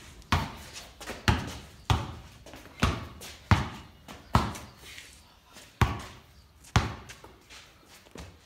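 Basketball being dribbled, about ten sharp bounces at an uneven pace of roughly one a second, each echoing in a corrugated-iron shed.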